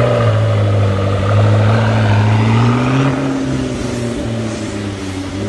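McLaren MP4-12C Spider's twin-turbo V8 pulling away at low speed. Its note rises gently for about three seconds, then eases off and slowly fades as the car moves off.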